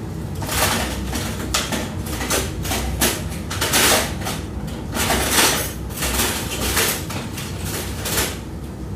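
A utensil scraping and knocking in a frying pan on the stove, in irregular short strokes, loudest about four and five seconds in.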